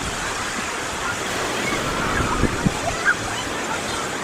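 Sea of Azov waves washing steadily onto the beach, with faint distant voices and a few short thumps a little past halfway.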